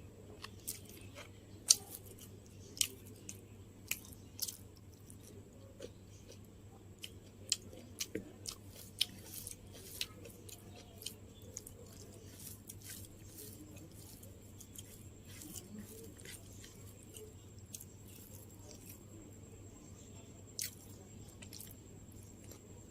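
Close-up chewing and biting of crunchy food, with sharp crisp crunches that come thick and fast in the first half and thin out later. A steady low hum runs underneath.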